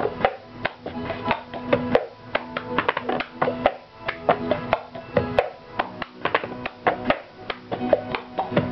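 Cup-game rhythm at a fast 140 beats per minute: a plastic cup rapped, lifted and set down hard on a tabletop, with hand claps, a quick run of sharp taps several times a second. Music plays underneath.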